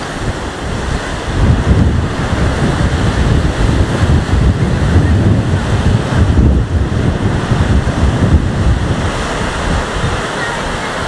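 Stormy sea surf breaking and rushing on the shore, with strong wind buffeting the microphone in heavy, uneven low rumbles; it grows louder about a second in.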